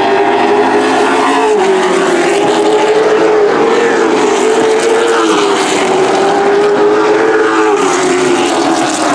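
Super Truck race engines running at speed around a short oval track, a loud steady engine note whose pitch rises and falls as the trucks go through the turns.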